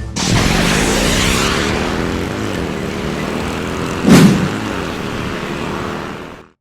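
Engine sound effect of a vehicle running and revving, its pitch rising and falling, with a loud whoosh about four seconds in; it fades out at the end.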